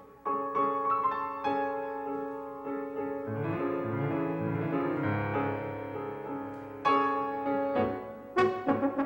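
Piano music: notes struck one after another, with a low sustained tone joining about three seconds in. A quicker run of notes follows near the end.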